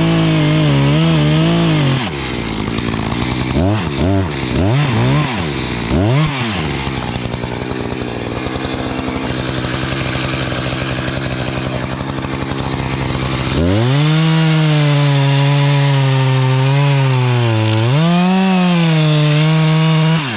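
Echo chainsaw revving in short bursts, then running more quietly for several seconds. About fourteen seconds in it goes back to high revs and holds there, its pitch wavering, to the end.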